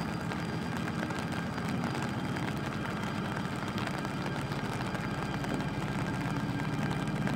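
Diesel locomotive's engine running steadily with a low, even hum as it slowly moves a train of flat wagons, with the wagons' wheels rolling on the rails.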